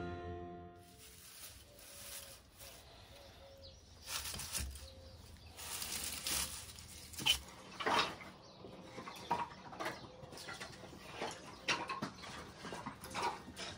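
Dry kindling being handled by hand: pine needles, dry grass, leaves and a pine cone rustling and crackling, with irregular sharp snaps starting about four seconds in.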